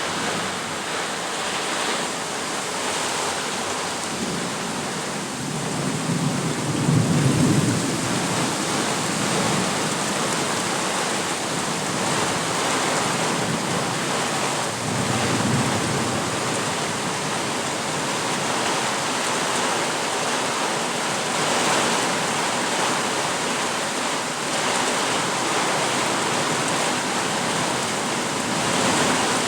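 Steady heavy rain during a thunderstorm, with a low roll of thunder building about five seconds in and peaking a few seconds later, and a second, shorter rumble around fifteen seconds in.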